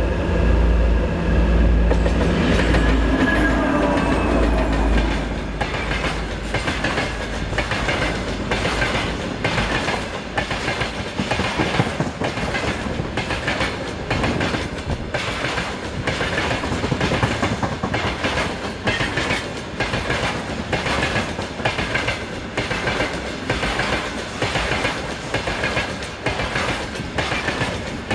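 A train passing close by: a heavy low rumble for the first few seconds, then a steady, rhythmic clickety-clack of wheels knocking over rail joints as the cars roll past.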